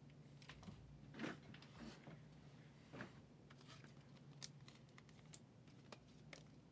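Near silence with faint clicks and short rustles of trading cards and card packs being handled, over a steady low hum.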